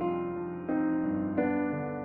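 Slow, soft piano music, held chords with a new one struck about every two-thirds of a second.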